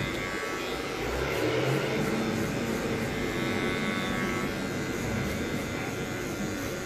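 Wahl electric hair clipper running steadily, its blades cutting close-cropped hair in a fade at the back and sides of the head.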